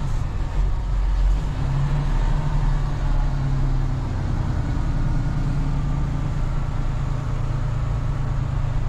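Semi truck's diesel engine running as the truck drives slowly onto a delivery site, a steady low drone.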